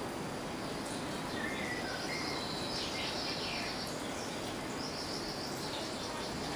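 Steady room noise with a few faint high-pitched tones about two to three seconds in and again near the end.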